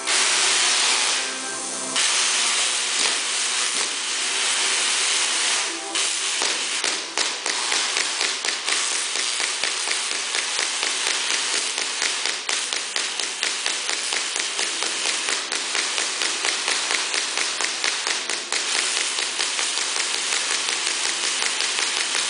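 High-voltage Tesla coil arcs buzzing and crackling loudly. For about the first two seconds the buzz carries steady pitched notes; then it becomes a dense crackle, pulsing several times a second with occasional sharper snaps.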